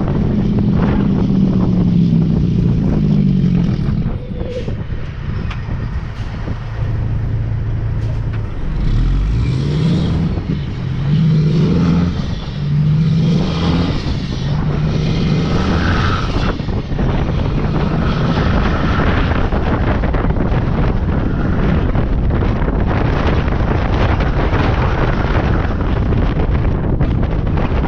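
Peterbilt tractor's diesel engine pulling a loaded lowboy trailer: the revs drop over the first few seconds, then climb and fall several times in quick succession as it works up through the gears, settling to a steady drive in the second half. Wind and road noise run underneath throughout.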